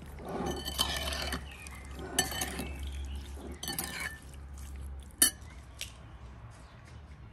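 A metal spoon stirring and scraping wet cherries in a ceramic bowl, in three squelching bursts over the first four seconds. About five seconds in there is a single sharp knock, as an egg is cracked against a glass bowl.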